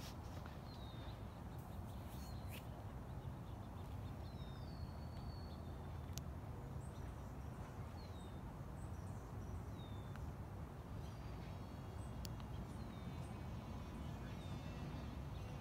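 Small birds chirping, short falling chirps every second or two, over a steady low rumble.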